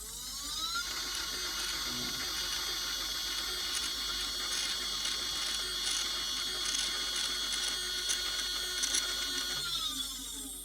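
Sky-Watcher HEQ5 Pro equatorial mount slewing: its stepper motors and gear train whine, rising in pitch as the mount speeds up, holding steady with faint ticks, then falling in pitch as it slows to a stop near the end. The slewing is loud, which follows a rebuild of the mount.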